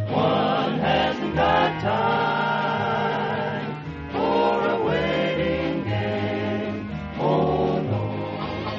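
Choir singing a song in long held phrases with orchestral accompaniment, the phrases breaking off and starting again a few times.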